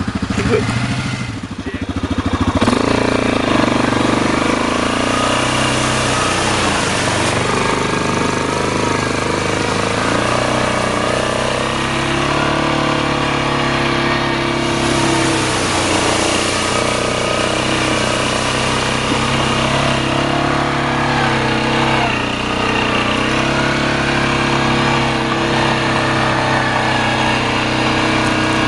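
Quad ATV engine running under changing throttle, its pitch rising and falling as it rides, heard from on board the moving quad.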